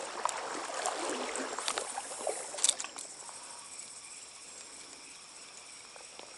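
Stream water splashing and sloshing close by for about the first three seconds, with a few sharp clicks, then settling to a fainter steady flow of the stream.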